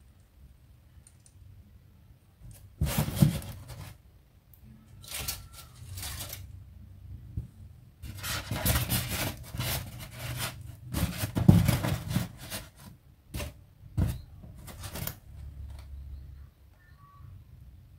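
Plastic toys and their packaging being handled: irregular rustling and crinkling bursts with short sharp clicks, the loudest about three seconds in and again in the middle.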